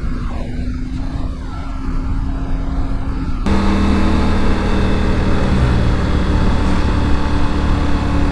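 Motorcycle engine running at a steady road speed, with wind and road noise. About three and a half seconds in it cuts abruptly to a louder, steadier engine note.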